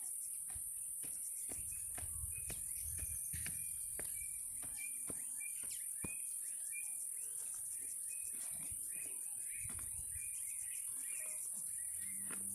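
Insects trilling in a steady high-pitched drone, with a string of short, high chirps repeating every half second or so through the middle.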